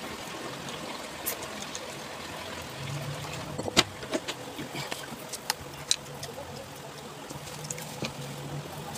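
Eating chicken feet: scattered sharp, wet clicks of chewing and lip-smacking, the loudest about four seconds in, over a steady background hiss and low hum.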